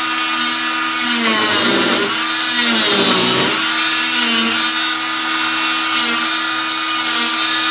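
Oscillating cast saw and its dust vacuum running with a steady high whine. The pitch sags twice, about one and a half and three seconds in, as the blade bites into the fiberglass cast.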